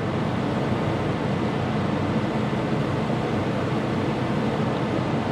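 A small electric motor running steadily, an airy whir over a low hum.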